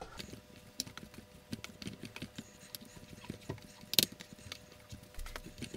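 Potato masher pressing steamed potatoes in a stainless steel saucepan: irregular light clicks and taps of the metal masher working the mash and knocking the pan, several a second, with one sharper clank about four seconds in.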